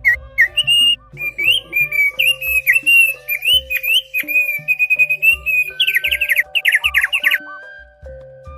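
Songbird singing a varied run of whistled and chirping notes, breaking into fast repeated chirps near the end and stopping about 7 s in, a bird-lure song for getting other birds to sing. Background music with steady tones and a regular low beat plays under it.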